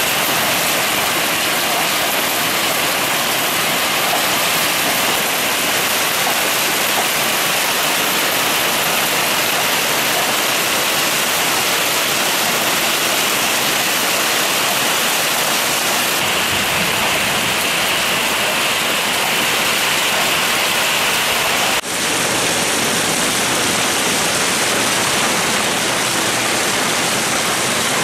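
Heavy rain mixed with hail pelting down on a car roof and garden foliage: a dense, steady hiss that breaks off for an instant about three-quarters of the way through.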